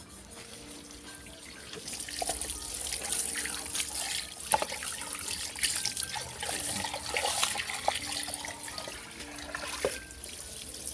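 Water from a garden hose splashing onto an emptied turtle shell on stone ground as it is rinsed by hand, starting about two seconds in, with a few sharp knocks along the way.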